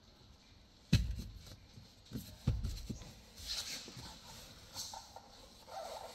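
Handling knocks and rustles of hard plastic car-interior trim, the glove box being picked up and brought to the dash: a sharp thump about a second in, two more knocks a little later, then light scraping and rustling.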